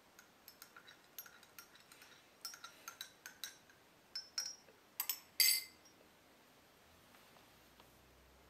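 Teaspoon stirring in a china cup, clinking lightly against its side again and again, with a louder, longer clink about five and a half seconds in.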